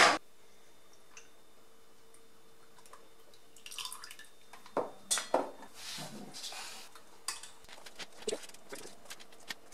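Condensed milk being poured from a carton into a stainless steel pot, dripping and glugging, with a few light clicks and knocks of the pot, starting about four seconds in.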